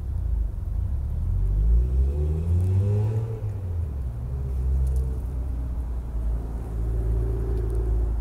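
An engine running, rising in pitch over about two seconds as it speeds up, then holding a steady note.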